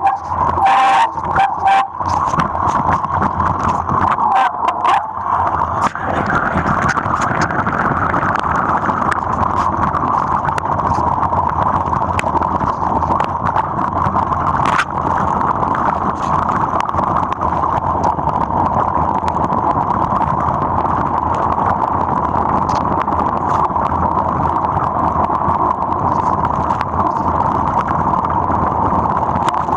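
Mountain bike rolling fast over a wet, muddy dirt trail, heard from a camera mounted on the frame: a steady rolling noise from the tyres and bike, with a run of clattering knocks over the first five seconds and another single knock about halfway through.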